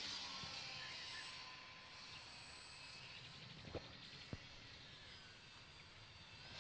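Whine of an electric RC model airplane's motor and propeller, fading quickly over the first couple of seconds as the plane flies off into the distance, then barely audible. Two brief knocks about halfway through.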